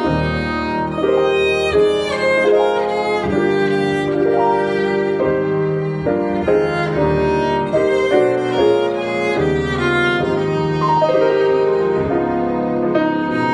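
Instrumental classical music: a violin melody with sustained notes over piano accompaniment.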